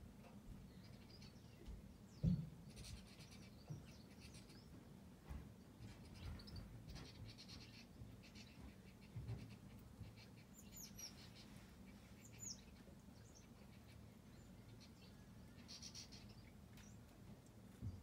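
Faint chirps and calls of small garden songbirds, with two high, quickly falling whistled notes about 11 and 12.5 seconds in. A single low thump comes about two seconds in.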